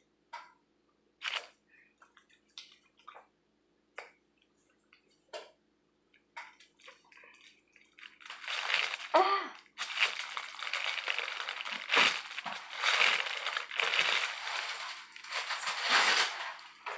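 Rice Krispie treat mixture being squeezed and packed by hand. A few scattered soft clicks, then from about eight seconds in a dense crunching and crackling of the puffed rice.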